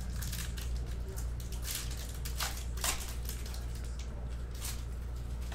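Foil wrapper of a 2020 Bowman 1st Edition baseball card pack being torn open and crinkled, in a series of short crackling rustles.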